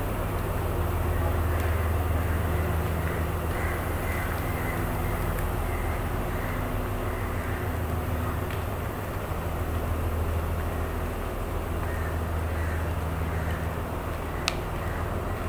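Diesel multiple-unit train's engine idling steadily with a low hum, with a single sharp click near the end.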